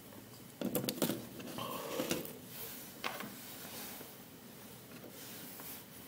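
Handling noise from a small circuit board being unplugged: a cluster of sharp clicks and scrapes just under a second in as an Arduino Pro Mini is pulled from its pin-header socket, then rustling and one more click about three seconds in as the board is moved.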